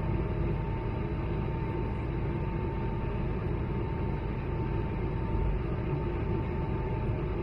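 Cabin noise of an Airbus A220-100 at takeoff thrust: its Pratt & Whitney geared turbofan engines and the airflow make a steady roar with a thin steady whine on top.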